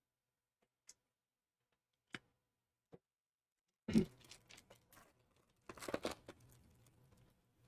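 A few faint clicks, then a thump about four seconds in followed by crinkling and tearing of a foil trading-card pack wrapper being opened, with cards handled.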